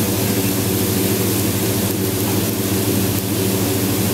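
Udon noodles, cabbage and offal sizzling on a hot teppan griddle: a steady hiss over a steady low mechanical hum, with a few faint ticks.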